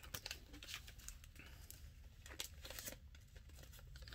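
Faint rustling and crinkling of a thin plastic bag being handled, in scattered small crackles, as a fabric shirt is tucked back into it.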